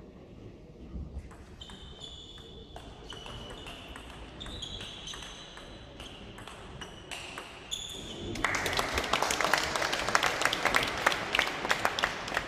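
Table tennis rally: the ball clicking back and forth off bats and table, a sharp hit every half second or so. About eight seconds in, the crowd breaks into loud applause for the point.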